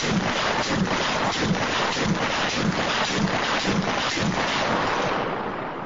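Wind buffeting the microphone: a steady rushing noise with a regular low thump a little under twice a second, fading out near the end.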